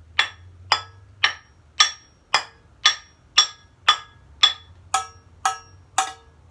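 Small stainless steel saucepan struck on its base with a wooden stick, about twice a second, a dozen times in all. Each strike is a sharp metallic clank with a brief ring of several tones.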